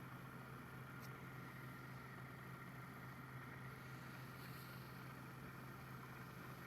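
Woodturning lathe's electric motor running steadily with a faint low hum.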